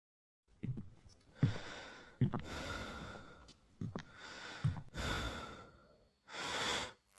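A person breathing and sighing: several breaths in a row, each a swell of hiss that starts with a soft low thump.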